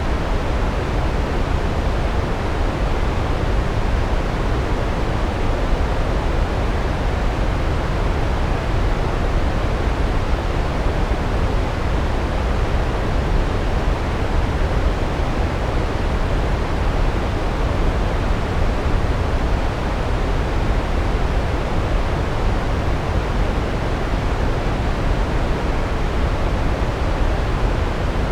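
Large waterfall, a steady deep rush of falling water with no change.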